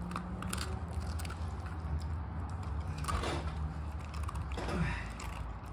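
Border collie chewing a hard biscuit dog treat, with crisp crunches each time she bites down, over a low steady hum.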